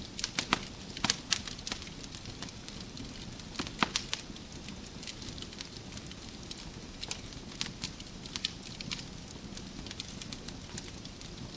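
Wood fire crackling in a fireplace: irregular sharp pops and snaps over a steady low rumble of burning logs, with a cluster of louder pops in the first second or so and another around four seconds in.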